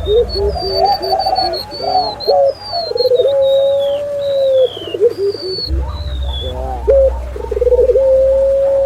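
Several doves (puter dove, spotted dove and zebra dove) cooing over one another in short rolling coos and two long held notes, with thin high whistles that slide down in pitch above them, the song of the remetuk laut (golden-bellied gerygone). It is a layered bird-lure (masteran) recording, made for training or attracting these birds.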